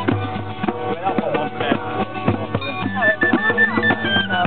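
Informal group jam of drums and cowbells, with repeated percussion strokes and ringing tones, and people's voices mixed in.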